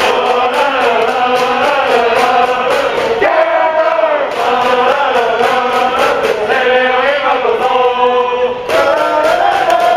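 Baseball cheering section singing a fight song in unison, the massed voices carried on a steady rhythmic beat.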